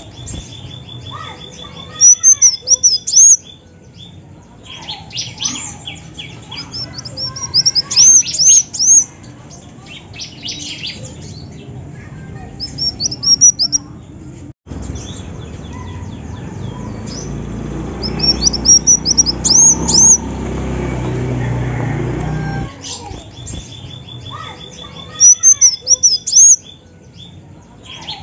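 Female kolibri wulung, a sunbird, calling in repeated bursts of rapid high chirps, five or six bursts spread through, over a steady low hum.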